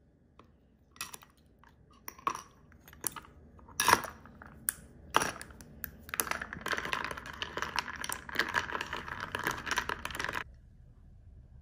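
Ice cubes dropped into a ceramic coffee mug with a few separate clinks, then a metal spoon stirring the ice in the mug: a fast, continuous clinking rattle that cuts off suddenly near the end.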